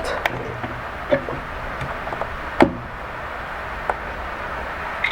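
A few short clicks and knocks of small plastic gear being handled and plugged in: a Lightning-to-USB-C adapter with a clip-on microphone going into a DJI RC remote controller's port. The loudest knock comes about two and a half seconds in, over a steady low hiss.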